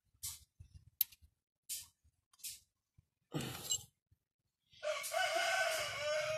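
A rooster crowing once, a long call that starts about five seconds in and is the loudest sound. Before it come a few light metallic clicks of hand tools on the valve adjuster.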